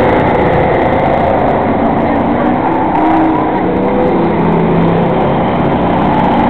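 Enduro stock cars racing on an oval: several engines running together in a loud, steady roar, with individual engine notes drifting up and down as cars pass.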